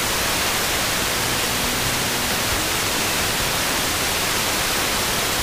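Hiss and static from an FM tuner on a weak, distant FM station. The signal is mostly buried in noise, with the station's audio only faintly showing through for a moment about a second in.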